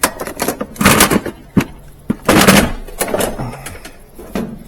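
Loose parts, capacitors among them, clattering and knocking as hands rummage through a box of stock, in irregular clicks with louder rattling bursts about a second in and again near the middle.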